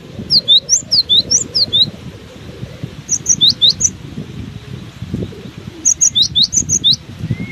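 Cinereous tit (gelatik batu) singing in three bursts of quick, high, sweeping chirps, with wind rumbling on the microphone throughout.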